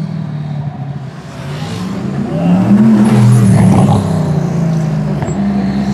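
Gumpert Apollo S's 4.2-litre twin-turbo V8 accelerating past at close range. The engine note rises and swells to its loudest about halfway through, then drops back a little and holds steady.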